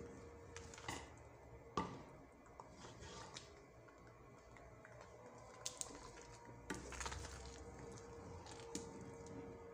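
Wooden spoon stirring and mashing thick, wet rice in a stone-coated pot: soft squelching with scattered knocks and scrapes of the spoon against the pot, the sharpest about two seconds in. A faint steady hum runs underneath.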